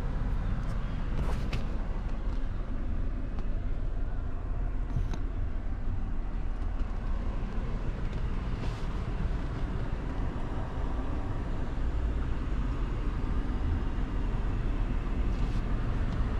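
Steady low rumble of a 2017 Toyota 4Runner's running 4.0 L V6, heard from inside the cabin. A few light clicks come through on top.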